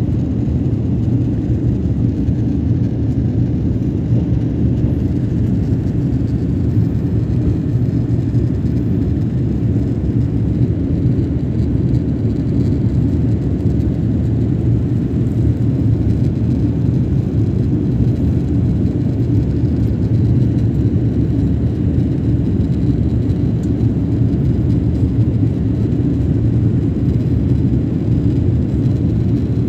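Steady, deep cabin noise of a jet airliner climbing after takeoff: engine noise and rushing air heard from a window seat by the wing, even and unbroken.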